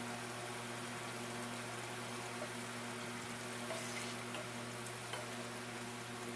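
Thick meat curry bubbling and sizzling steadily in a pot as it fries down, with a few light scrapes and taps of a spoon stirring it in the second half. A faint steady hum runs underneath.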